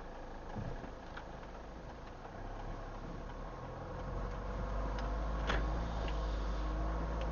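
Car interior sound picked up by a dash cam's microphone while driving: low engine and road rumble that grows louder a couple of seconds in, with a few scattered clicks and ticks.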